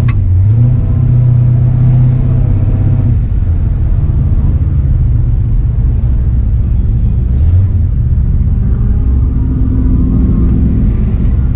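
Car engine running loud and low, its pitch rising briefly as it revs near the start and again about seven and a half seconds in.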